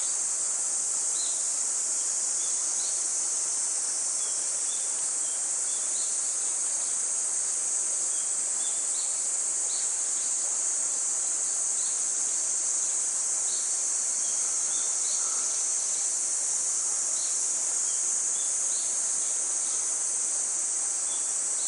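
Steady, high-pitched chorus of insects droning without a break, with short faint chirps scattered through it.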